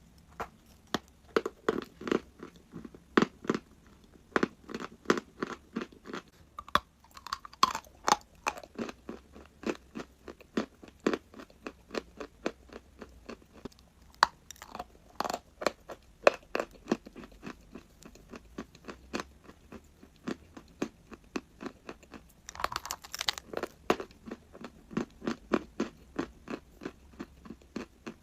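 A person biting and chewing crunchy chalk close to the microphone: a continuous run of sharp crunches, with louder, crisper bites about a quarter of the way in and again near the end.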